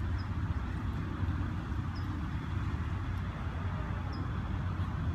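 Steady low rumble of outdoor background noise, with a few faint high chirps about two seconds apart.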